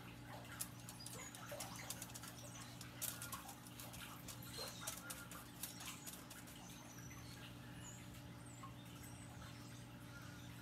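Faint background sound: a steady low hum under scattered small clicks and taps, with a few faint bird chirps.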